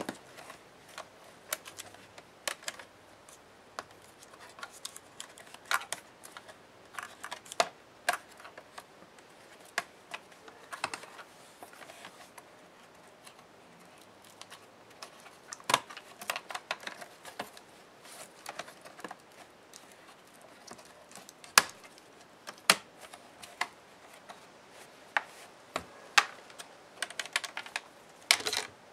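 Irregular sharp clicks and taps of small plastic and metal laptop parts being handled, unclipped and set down during hand disassembly of an Alienware M17x R3, with a few louder clicks scattered through.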